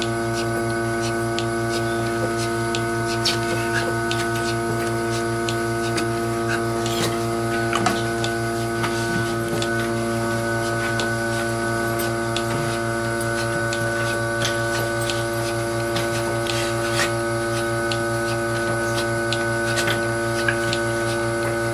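Surge bucket milker running on a Jersey cow: a steady electric hum from its vacuum pump, with a few faint scattered clicks.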